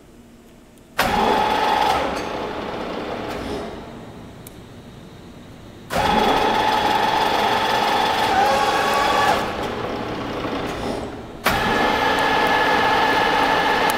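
WMW FU 400x1600 milling machine's electric drives and gearbox running with a steady whine. It starts abruptly three times as its controls are switched, about a second in, about six seconds in and near the end, easing off in between.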